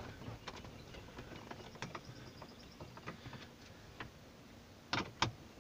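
Faint, irregular clicks and taps of a 10 mm bolt and socket being fitted and snugged into the bottom of a dash radio mounting bracket, with two sharper clicks about five seconds in.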